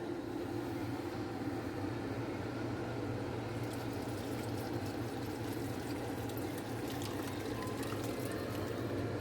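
Liquid pouring steadily into a cooking pot of curry chicken, with faint crackling from about halfway through.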